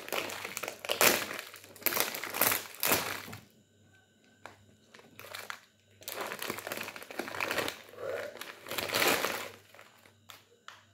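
Plastic instant-noodle packet being torn open and crinkled by hand. The rustling comes in several bursts, with a quiet pause of a couple of seconds in the middle.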